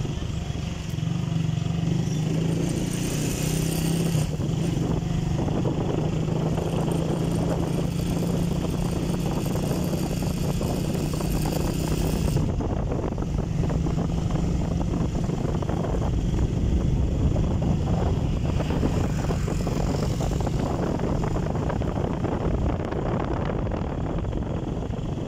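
Engine of a moving road vehicle running steadily at cruising speed, with road and wind noise.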